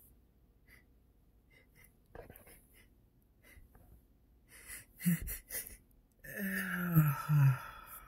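A man's allergy sneeze: faint sniffs and breaths, a sharp gasp about five seconds in, then one loud voiced sneeze lasting over a second, dropping in pitch at its end.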